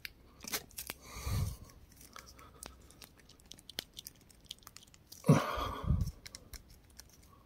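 Hard plastic action-figure parts handled close up: scattered small clicks and rubbing as a ball-joint piece is pushed against its socket without snapping in, with a short rustle about a second in and a louder rustle and knocks about five seconds in.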